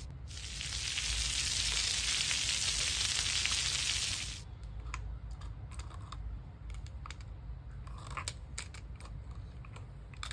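Steady frying sizzle that stops about four and a half seconds in, followed by scattered light clicks and taps.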